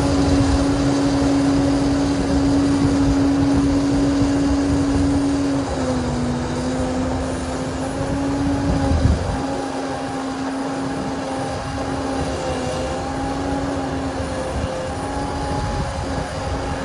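Heavy machinery running: a steady droning engine whine over a rumble, dropping slightly in pitch about six seconds in, with a knock about nine seconds in.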